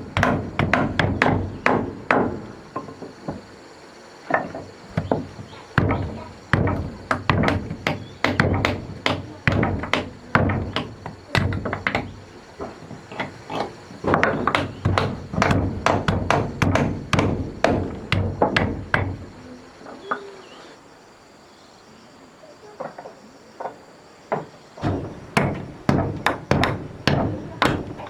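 Hammer striking wood in quick, repeated blows, about two to three a second, as timber is worked for a house wall. The blows pause briefly early on and for a few seconds about three-quarters of the way through, then resume.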